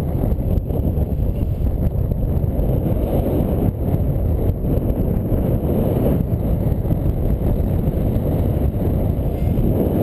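Airflow over the microphone of a paraglider pilot's camera in flight: a loud, steady low rush of wind noise.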